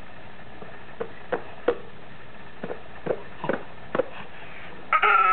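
A toddler's hands patting and slapping a basketball: about ten short pats in uneven clusters, over a steady background hum. Near the end the toddler lets out a high, drawn-out vocal sound.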